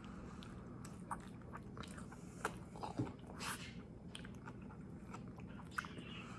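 A person chewing a mouthful of protein wrap with asparagus, bologna and cheese: soft, wet mouth clicks and smacks scattered through, a few louder ones around the middle.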